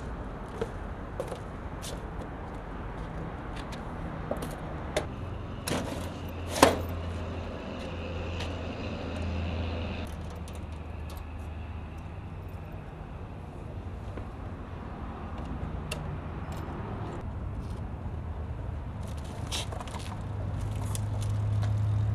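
Sharp clicks and clunks of a battery pack being handled and fitted into an electric motorcycle, the loudest knock about six and a half seconds in, over a steady hum of street traffic that grows louder near the end.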